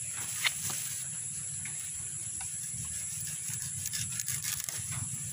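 Split-bamboo slats and plastic tying strap being handled, giving light clicks and rustles: a sharp click about half a second in, and a cluster of small scrapes and clicks about four seconds in. Insects keep up a steady high-pitched trill underneath.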